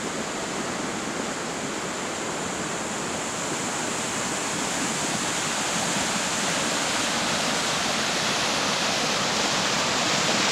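Heavy flow of water pouring over a concrete river weir and churning into white water below: a steady rushing noise that grows gradually louder.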